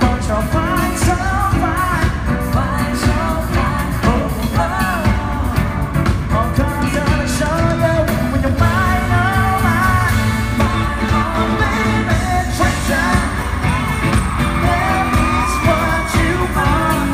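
Live pop-rock band playing, with a male lead vocal singing the melody over steady drums and bass.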